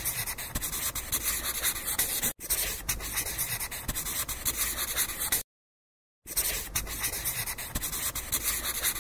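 A marker scribbling in many quick, scratchy strokes, the sound of a drawing being sketched and coloured in. It breaks off for an instant about two and a half seconds in, stops for nearly a second about five and a half seconds in, then resumes.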